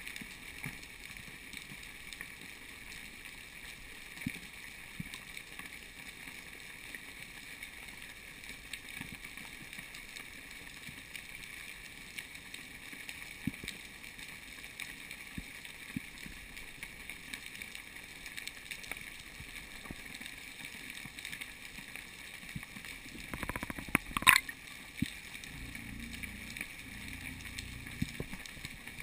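Underwater ambience heard through an underwater camera: a steady muffled hiss with a constant faint high hum and scattered small clicks. About 24 seconds in, a short cluster of louder knocks.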